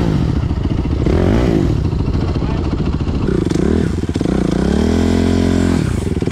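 Dirt bike engine revving in short rising and falling blips, then held at a steady speed for about a second before dropping off near the end.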